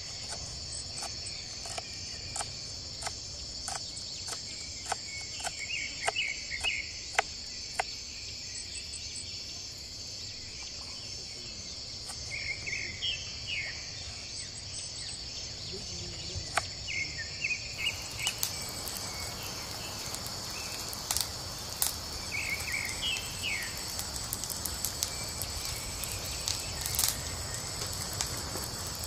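Steady high drone of crickets and other insects, with a knife tapping sharply on a wooden board as green chilies are chopped over the first several seconds, and short bird chirps now and then. The background hiss grows louder about two-thirds of the way through.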